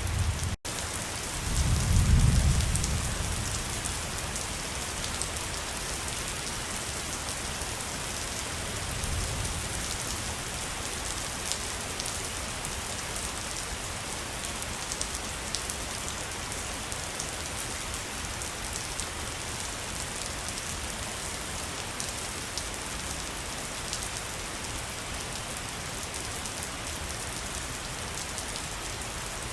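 Waterfall: a steady rush of falling water with a fine patter of droplets. It cuts out very briefly about half a second in, and a low rumble swells about two seconds in, with a weaker one later.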